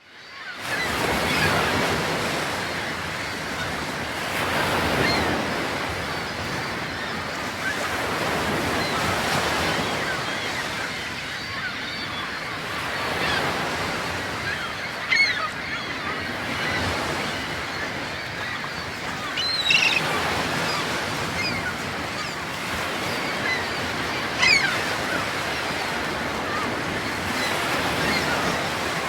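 Ocean surf washing in and out in a steady rush that swells and ebbs over several seconds, with three short, high cries in the second half that may be birds.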